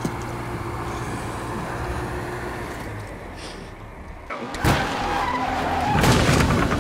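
A steady low engine-like hum. About four seconds in, race-car sound effects burst in: stock cars at speed, a bump and a screech of skidding tyres.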